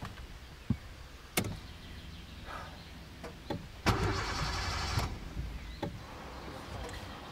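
Car ignition key clicking twice, then the starter motor cranks for about a second and stops without the engine catching. The car has run out of fuel.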